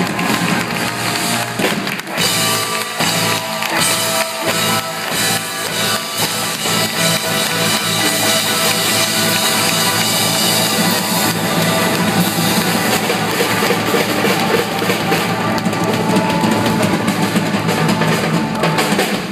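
Live rock-and-roll band playing loudly: a drum kit driving a fast beat under electric and acoustic guitars.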